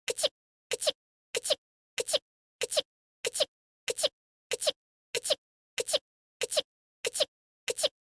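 One small, cute anime-style sneeze from a female voice, looped back to back: the identical short sneeze repeats about one and a half times a second, about thirteen times, with dead silence between each.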